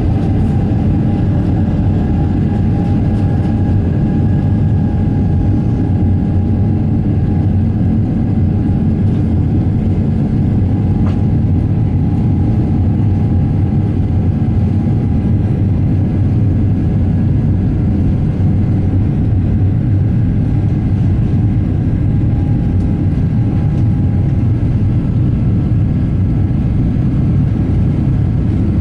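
Boeing 777-300ER's GE90 engines at takeoff thrust heard from the forward cabin: a loud, steady rumble with a steady fan whine that fades near the end.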